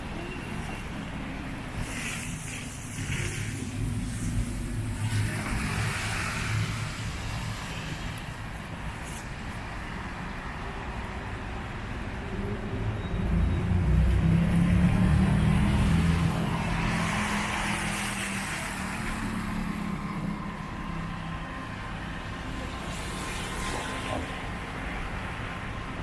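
Street traffic: cars passing, with a heavier vehicle's engine rumble swelling up about halfway through and then fading.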